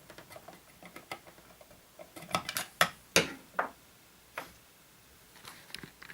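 Irregular light clicks and metallic clinks of small metal parts of a disassembled electric metronome being handled and prodded, bunched together a couple of seconds in, then a few scattered ones.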